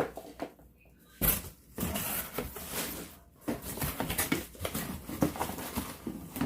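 Objects being handled and moved about on a tabletop: irregular rustling and scraping with several knocks, the sharpest about a second in.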